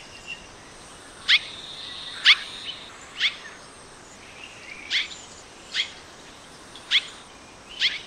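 Sri Lanka swallow calls: about seven short, sharp notes, each sweeping steeply down in pitch, spaced roughly a second apart. Faint steady high tones sit underneath.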